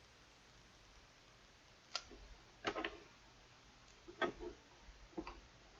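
Sharp clicks and light knocks of faucet parts being handled, a few separate strikes in the last four seconds, as the spout is fitted onto a new kitchen faucet.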